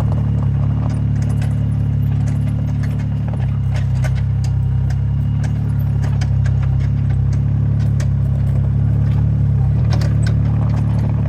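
Mini excavator's diesel engine running steadily, with scattered light clanks and rattles from the machine's tracks, bucket or crushed stone; the engine note shifts slightly about three seconds in.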